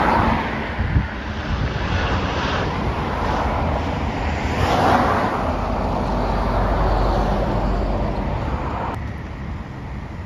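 Vehicle noise with wind buffeting the microphone: a steady noisy rush that swells near the start and again about five seconds in, then drops away abruptly about nine seconds in.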